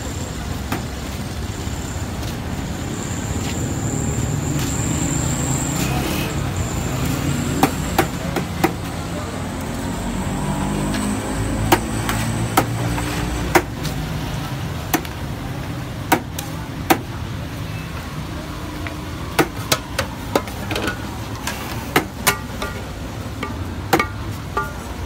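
Sharp metallic clinks of a serving ladle and plate knocking against a large aluminium pulao pot, repeated every second or so from a few seconds in, over the steady rumble of street traffic.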